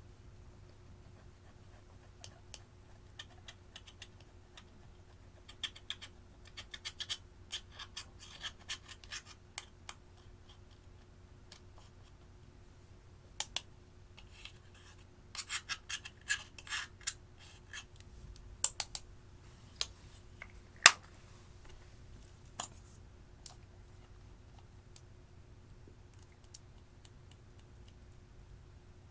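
Slime and eyeshadow being worked by hand: irregular bursts of sharp crackling clicks and scratches, thickest in two clusters, with a few single loud snaps.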